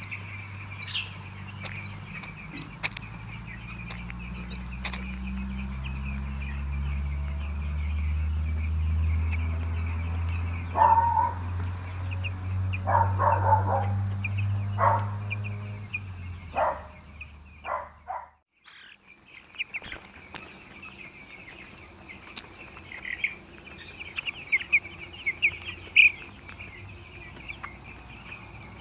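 A flock of young chicks peeping continuously, many high chirps overlapping. About halfway through there is a run of sharp, close knocks, the loudest sounds. A low hum underlies the first half and stops suddenly.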